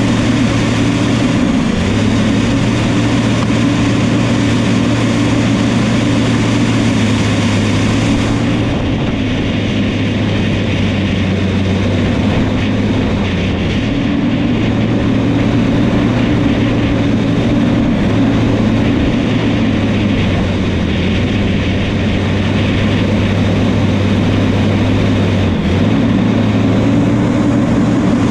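New Holland crawler bulldozer's diesel engine running hard and steadily as the dozer works, its pitch dipping slightly and recovering a few times.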